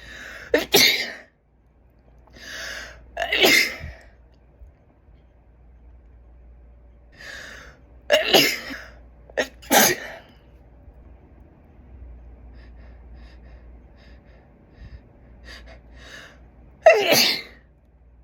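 A woman sneezing five times, some with an audible sharp in-breath before them. The first comes about a second in, the next near four seconds, two more close together around eight to ten seconds, and the loudest near the end, with faint sniffs in between. The sneezes come easily from a nose that is itchy, sniffly and wet.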